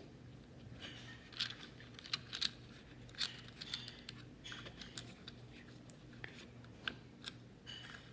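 Plastic fidget toy being handled: a finger rubbing and scraping over it, giving faint, irregular clicks and scratchy rustles.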